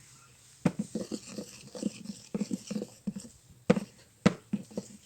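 Sticky, wet clicks and squelches of glue slime being stirred in a small pot, coming irregularly several times a second with two sharper smacks near the middle.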